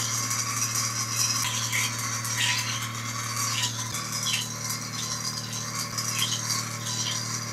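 Small electric motor under a water-filled vase, running with a steady low hum and a rattling hiss that swells about once a second as it spins the water into a vortex.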